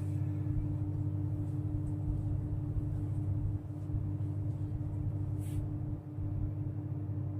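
Steady low hum with a faint held tone above it, and a brief hiss about five and a half seconds in.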